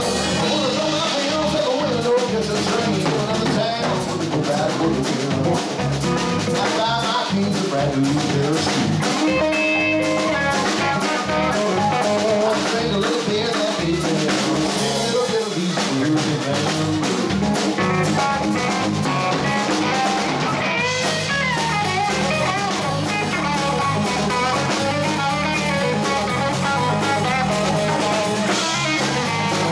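Live rock band playing: amplified electric guitar, electric bass and a drum kit, continuously and at a steady loudness.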